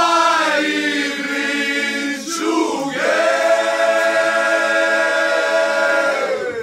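A group of voices singing together with no instruments: a few short phrases, then one long held note through the second half that stops just before the end.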